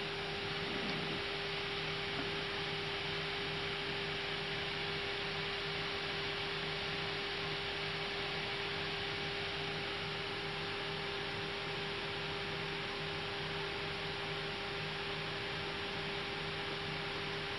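Steady cockpit noise of an Airbus A320 on the ground: an even rushing hiss with a steady electrical hum over it, unchanging throughout.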